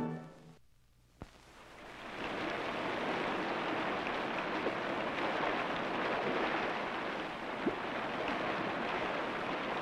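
Running water of a small rocky stream splashing over stones, a steady rushing that fades in after a brief silence about a second and a half in.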